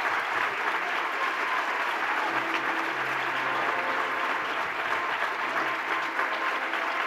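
A large audience applauding steadily: many hands clapping at once, keeping an even level throughout.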